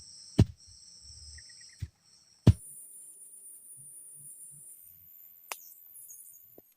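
Forest insects shrilling in steady high-pitched tones, the pitch jumping higher about two and a half seconds in. Four sharp clicks cut through, the two loudest near the start and where the pitch changes.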